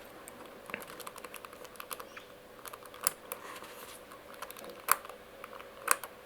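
Small irregular plastic-and-metal clicks of a Master Lock combination padlock's dials being turned by hand, with a few louder clicks about three, five and six seconds in, as each dial is worked to feel for the loose position that gives away the combination.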